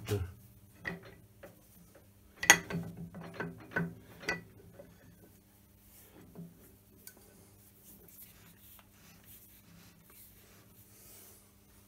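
Heavy milling head attachment being slid by hand onto the steel overarm support rods of a Schaublin SV52 milling machine: metal-on-metal clanks and knocks, the sharpest about two and a half seconds in and several more over the next two seconds, then faint scraping and ticking over a steady low hum.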